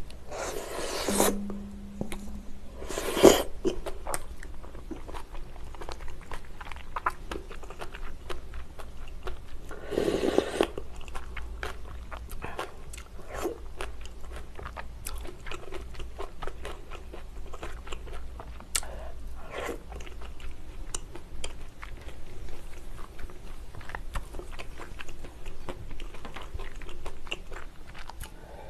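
A person chewing mouthfuls of bibimbap: a steady run of small wet mouth clicks and soft crunches. There are a few louder, brief noisy sounds near the start, about three seconds in, and about ten seconds in.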